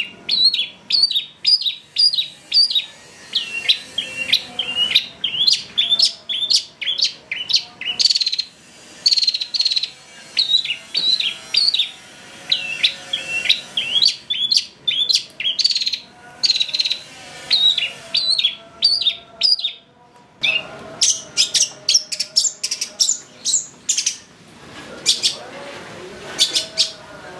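Long-tailed shrike singing a long run of short, sharp chirping notes, two or three a second. From about twenty seconds in come harsher, scratchier notes. This is a lure recording of a shrike in full song, meant to provoke other shrikes into singing.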